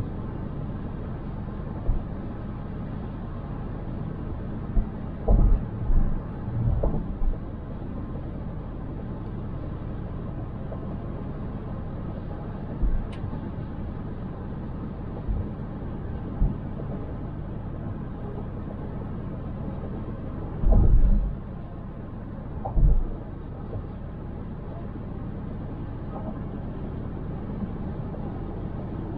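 Steady tyre and road noise of a car being driven. Several short low thumps break through it: a cluster about five to seven seconds in and the loudest two near twenty-one and twenty-three seconds.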